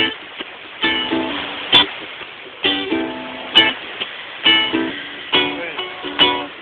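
Ukulele strummed in a steady rhythm, a new chord stroke a little under a second apart, with sharp accented strums.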